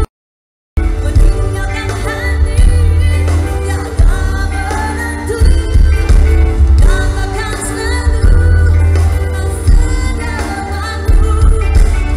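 Live pop-progressive band with a female lead singer, recorded from the audience on a small camera, with heavy, boomy bass. The sound drops out completely for under a second at the start, then the song carries on.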